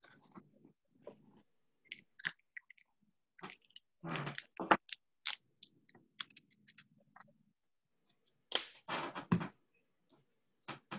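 Irregular clicks, rustles and knocks of objects being handled close to a computer microphone, with two louder clusters of scraping and knocking around the middle and near the end.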